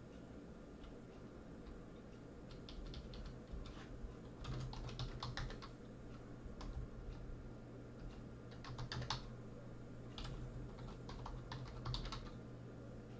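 Computer keyboard typing: short bursts of quick keystrokes with pauses between them.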